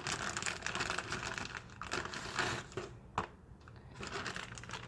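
Crinkling and rustling of packaging being handled, a dense quick crackle for about three seconds, then a single sharp click and quieter rustling.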